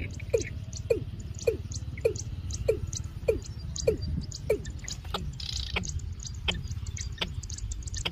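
Watercock calling: a steady series of deep, hollow notes, nearly two a second, each falling in pitch, growing weaker after about four and a half seconds, over a low steady rumble with faint high chirps.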